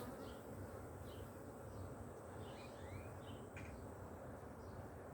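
Honeybees humming steadily around an open hive, with a few short bird chirps about halfway through.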